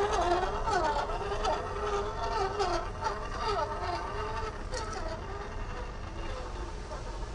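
Kyosho Mini-Z 4x4 RC car's small electric motor and gearbox whining, the pitch rising and falling with the throttle, with a few brief clicks.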